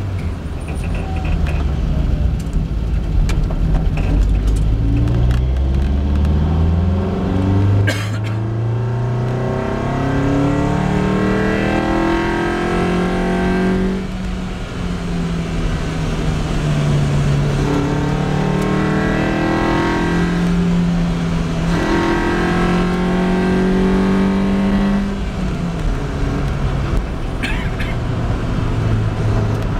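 Lotus Elise's four-cylinder engine heard from inside the car, pulling hard uphill with its pitch rising again and again through the gears, a short sharp click about eight seconds in, and a drop in revs about halfway through before it pulls again and settles to a steadier run near the end.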